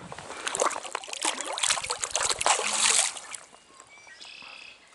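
Water splashing and sloshing for about three and a half seconds, then dying away, as a brown trout is let go back into the stream.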